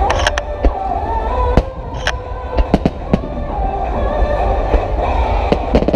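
Aerial fireworks bursting in a scattered string of sharp bangs over a deep continuous rumble, with music playing underneath.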